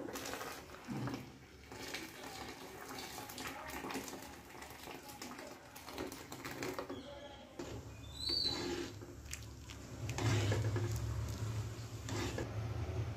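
Thick gravy and water poured from a bowl into an aluminium pot of cooked black-eyed beans, splashing and sloshing, then a steel ladle stirring through the liquid. A low steady hum comes in about two thirds of the way through and is the loudest sound near the end.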